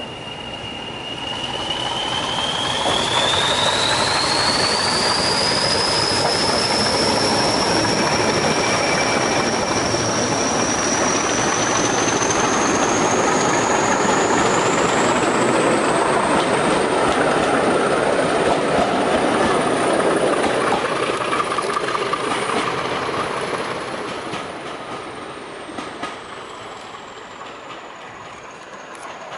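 Class 40 diesel locomotive 40106 passing under power with its coaches: the turbocharger whistle of its English Electric 16SVT engine climbs steadily in pitch over the engine's rumble and the clatter of wheels on the rail joints. The sound fades as the train draws away near the end.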